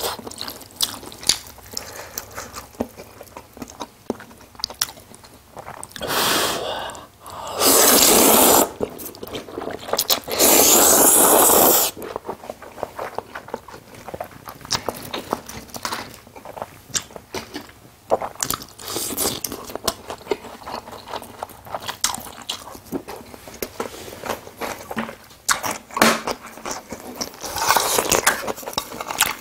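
Close-miked chewing of jajangmyeon noodles: wet mouth clicks and smacks throughout, with two long, loud slurps of noodles about seven and ten seconds in.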